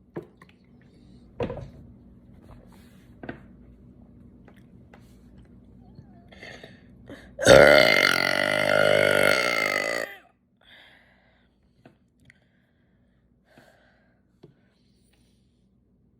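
A person's long, loud, pitched burp lasting about two and a half seconds past the middle, its pitch sinking as it goes. A few faint short clicks come before it.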